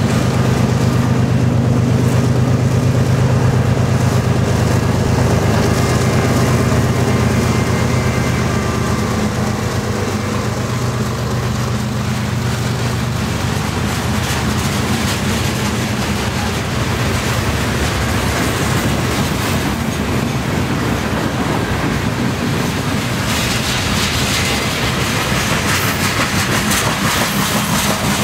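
Freight train cars rolling past on the track: covered hoppers and boxcars, wheels rumbling and clacking over the rail joints steadily. A low hum in the first few seconds fades out, and the clatter turns more high-pitched near the end.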